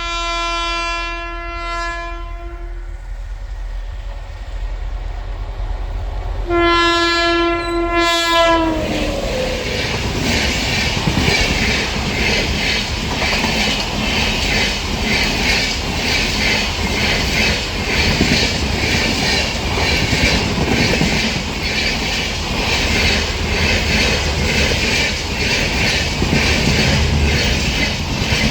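WAP-7 electric locomotive's horn sounding two long blasts, the second ending in a falling pitch. The express then rushes past with a loud, steady clickety-clack of wheels over rail joints.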